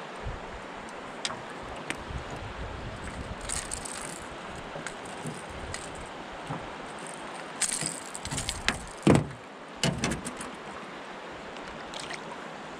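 Steady rush of river water and wind around a small boat, with scattered light clicks and a cluster of louder knocks about eight to ten seconds in.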